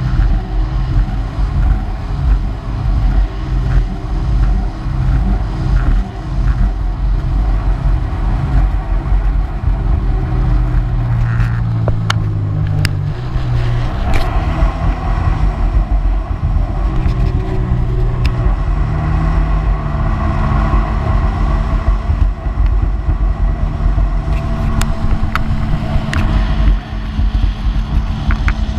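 Personal watercraft running at speed on open water: its engine drone under rushing water and wind, with the engine note swelling for a few seconds around the middle and sharp splashes of spray now and then.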